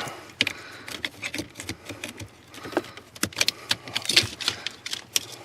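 Irregular clicks, rattles and rustles of a plastic wiring-harness connector and its wires being worked loose by hand.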